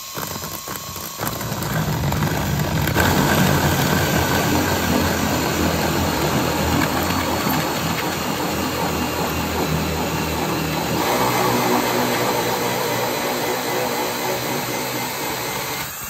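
Power drill turning a 2-inch hole saw as it cuts through the hard, dried shell of a bule gourd: steady motor hum with the rasp of the saw teeth. It runs without a break, gets louder about a second in as the saw bites, and shifts in tone about eleven seconds in.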